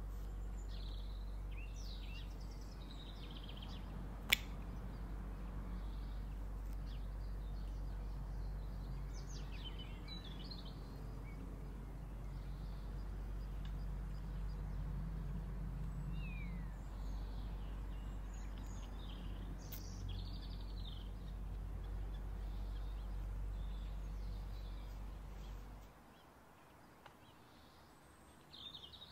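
Outdoor ambience: a steady low hum with small birds chirping faintly here and there. A single sharp click sounds about four seconds in, and the hum drops away near the end.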